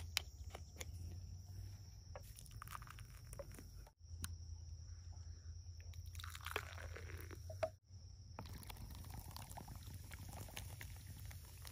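Beer poured from a can into a plastic tub, faint splashing and fizzing, with light clicks and rustles of handling. The sound breaks off abruptly twice.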